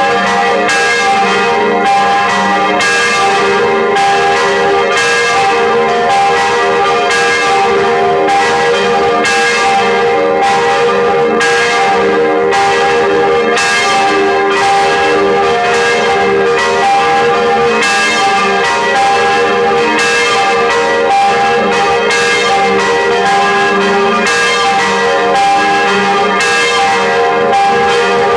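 Church bells ringing continuously. The strokes come every half second to second, and their tones hang on and overlap into a steady ring.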